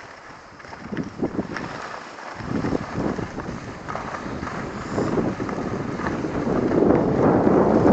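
Wind rushing over the microphone, with the hiss and scrape of skis sliding on snow; it grows louder near the end.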